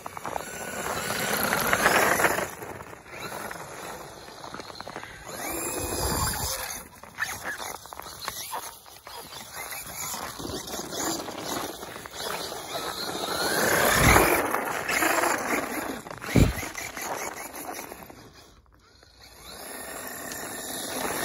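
Traxxas E-Revo 2.0 RC truck's electric motor whining up and down on the throttle, its tyres spinning and sliding on snow and ice. The whine swells loudest about two seconds in and again about two-thirds of the way through.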